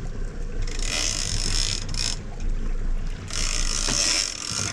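Outboard motor running steadily at low revs, with a big-game fishing reel working in two bursts of a few seconds each, its gears and ratchet whirring as line moves during the marlin fight.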